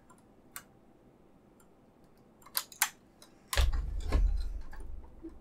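Plastic packaging and ties on a diecast model car being handled: a few sharp clicks, then about three and a half seconds in a low thump and rumble lasting over a second, with more clicks over it.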